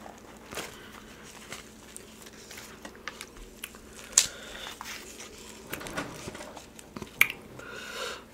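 A person chewing food, with scattered sharp clicks from eating and handling food, the loudest about four seconds in and again about seven seconds in, and a short rustle near the end.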